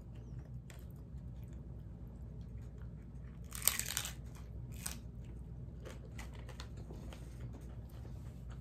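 A bite into a crunchy fried corn taco shell filled with ground beef: one loud crunch about three and a half seconds in and a smaller one just after, then chewing with small crunches.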